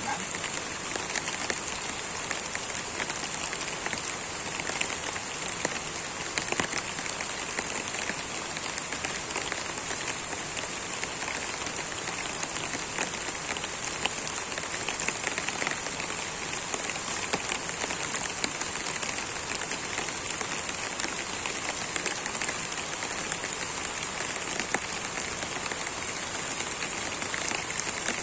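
Steady rain falling on leaves and undergrowth: an even hiss with many small drop impacts.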